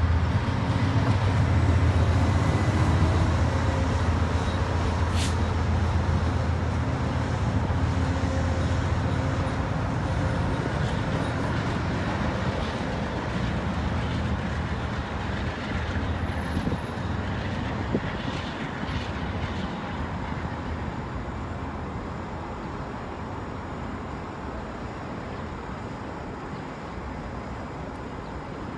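GE Genesis P42DC diesel locomotive and its Budd passenger train running at low speed, a steady low engine hum that fades about a third of the way through as the train draws away, over city traffic noise.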